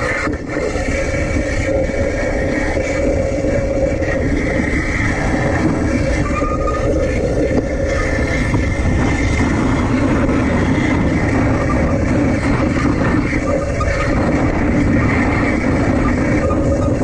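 Electric tram running steadily along its track, heard from a camera on its roof-mounted trolley pole: a continuous rumble with a steady hum over it.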